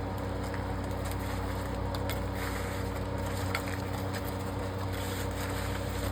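Cooked chicken pieces being added to thickened sauce in a pan and stirred, with a few light clicks of the utensil against the pan over a steady low hum.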